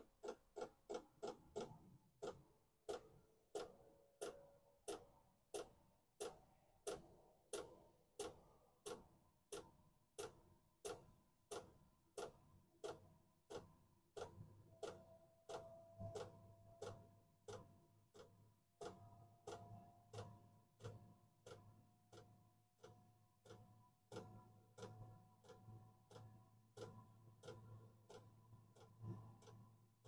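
Diesel heater's fuel dosing pump ticking faintly and evenly, about twice a second, over the blower's faint hum, which slowly rises in pitch as the heater ramps up; a low hum joins about halfway through.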